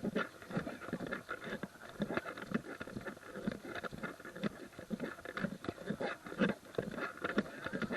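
Footsteps crunching on a gravel trail while hiking: a quick, irregular run of steps.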